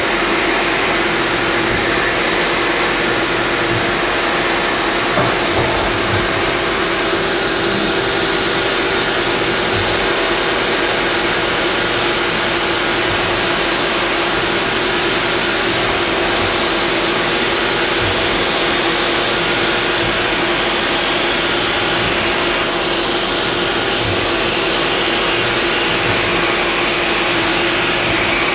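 1995 Haas VF-3 CNC mill machining an aluminium block: a steady hiss from the mist blast at the cutter over a steady hum from the running spindle.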